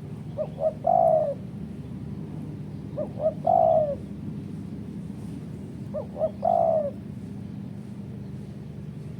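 Spotted dove cooing three times, about three seconds apart. Each phrase is two short notes followed by a longer falling coo. A steady low hum runs underneath.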